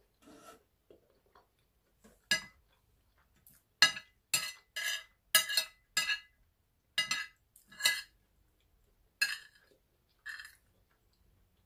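Metal spoon clinking against a ceramic plate as food is scooped up: about a dozen sharp clinks in quick, uneven succession, starting about two seconds in.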